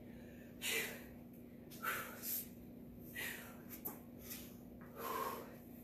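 A woman breathing hard from exertion: short, sharp exhalations about once a second. A steady low hum runs underneath.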